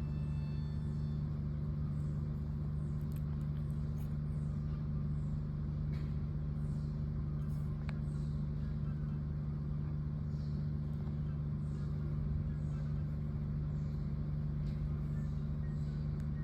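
A steady low machine hum, with faint short high-pitched chirps recurring every second or so.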